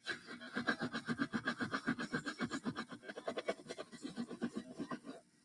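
Blue microfiber cloth scrubbed rapidly back and forth on shag carpet over a hardened, crunchy patch of dried slime, about eight quick rasping strokes a second. It starts abruptly and stops just before the end.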